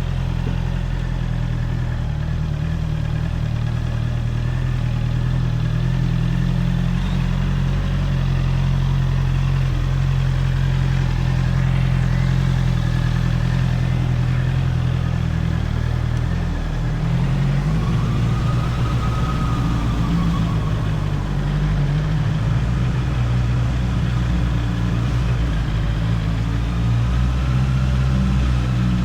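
Honda CBR650R's inline-four engine running through its stock exhaust, heard from on the bike. The engine note shifts about two-thirds of the way through.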